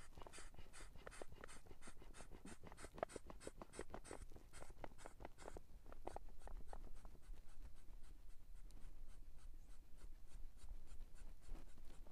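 Inflatable camping pillow being hand-pumped: a steady run of short rustling squeezes of nylon fabric and air, about three a second, fading to lighter strokes about halfway through.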